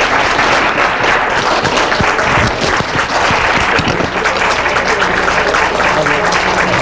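An audience applauding steadily, a dense, even clapping from a roomful of people.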